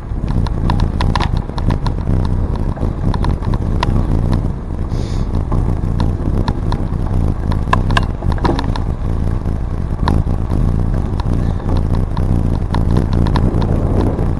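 Bicycle riding along a trail: a steady low rumble of tyres and wind, with many quick rattling clicks from the bike over the bumps.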